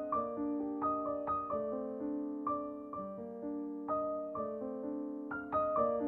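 Background music: gentle solo piano playing chords and melody notes, about two or three struck a second and left to ring out.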